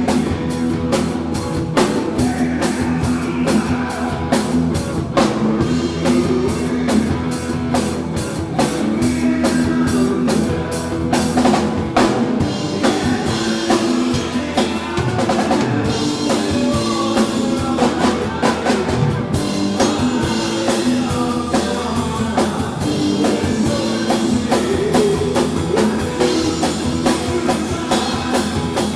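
Live rock band playing, the drum kit loud and driving a steady beat under distorted electric guitar and bass.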